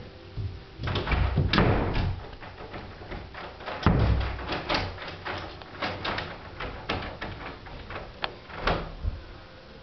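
Irregular knocks, taps and clicks, with heavier thuds about a second and a half in and again about four seconds in.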